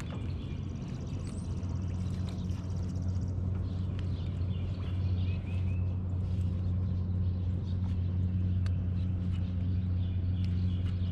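Boat motor running with a steady low hum, while birds chirp and trill over it.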